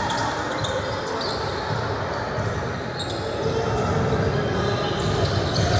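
Ball bouncing on a hard gym floor amid a steady hubbub of voices in a large echoing hall.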